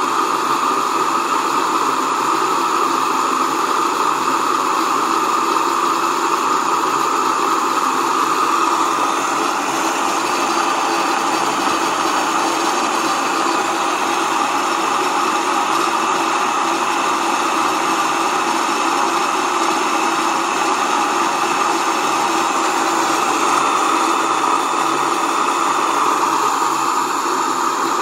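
Waldner BioTech Single electric grain mill running steadily, grinding white rice into flour: an even, unbroken motor-and-grinding noise.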